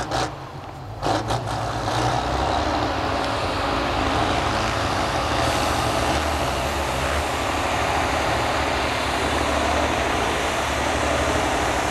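Off-road trial truck's engine running hard under load as it climbs a slope, loud and steady from about a second and a half in. A few sharp knocks come in the first second.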